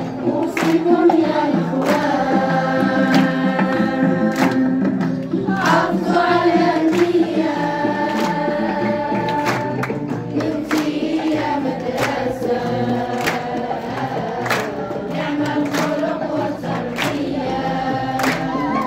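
A choir of voices singing a song over music with a steady percussive beat.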